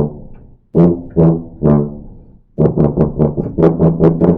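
Tuba played with a blatty, farty tone: three separate tongued notes, then a quick run of about eight notes. The flat, buzzy sound is the tone fault that makes tuba players sound like farts.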